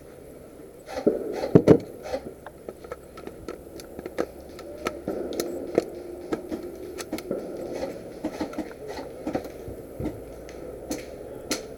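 Airsoft gun and gear being handled: irregular clicks, knocks and scrapes, with a cluster of louder knocks about a second and a half in.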